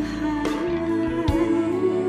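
Ballad music: a long held note with vibrato over band accompaniment, with a few drum hits.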